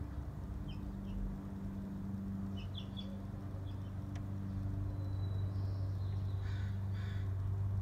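Outdoor ambience: a steady low mechanical hum, with small birds chirping now and then and two harsher bird calls near the end.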